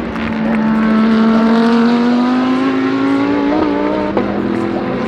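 GT3 race car engine running at high revs under acceleration, its pitch climbing slowly, then an upshift a little after four seconds drops it to a lower pitch.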